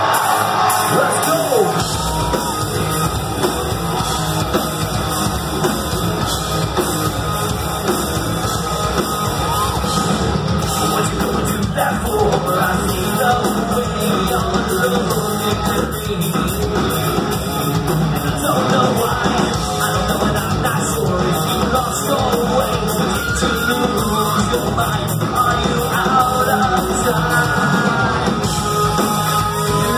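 Live industrial metal band playing loud, with distorted guitars, pounding drums and yelled vocals, heard from within the crowd; the deep bass fills in about two seconds in.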